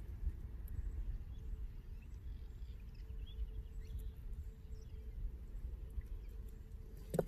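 Low, steady wind rumble on the microphone, with a few faint clicks as a hook is worked out of a largemouth bass's mouth.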